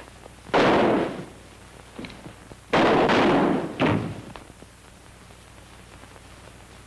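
Three loud, sudden bangs with dying tails: one about half a second in, a longer one near the three-second mark, and a shorter one about a second after that.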